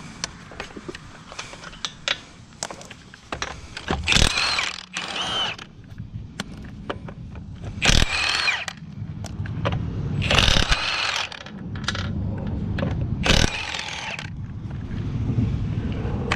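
Hand tools working on a stuck strut bolt: clicks and clanks, with four loud bursts of metal squealing about a second long as the fastener is forced.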